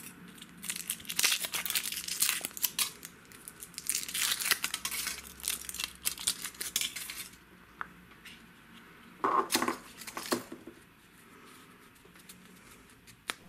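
Foil wrapper of a Kinder Surprise chocolate egg crinkling and tearing as it is peeled off, in a dense run for about seven seconds. After that it goes quieter, with a short burst of crinkling around nine to ten seconds in and a single click near the end.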